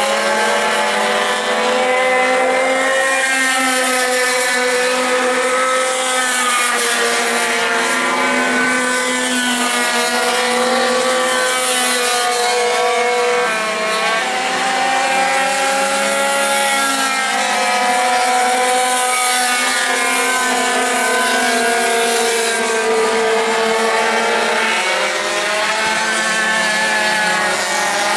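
Several racing pocket bike (minibike) engines running hard at high revs all together. Their pitches rise and fall separately as the bikes accelerate out of corners and back off into them.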